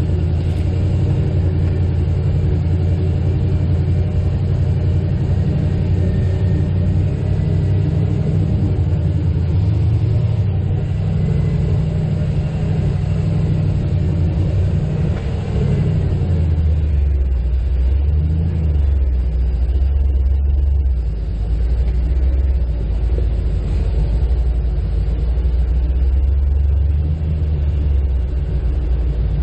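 Off-road vehicle's engine running steadily, dropping to a lower, deeper note about halfway through and holding there.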